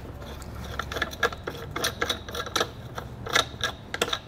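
Hollywood Racks Destination bike rack's fold-lock knob being screwed back into the folding bracket by hand: a run of irregular small clicks and rattles of metal and plastic as the folded rack is secured.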